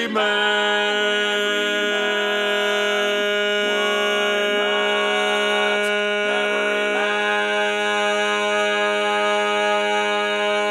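Male barbershop quartet singing a cappella in four-part close harmony, with the bass part mixed loudest as a learning track. The chord changes a few times, then one long chord is held steady from about two thirds of the way in.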